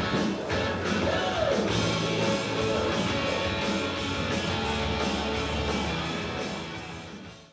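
Rock music with guitar and a steady beat, fading out near the end.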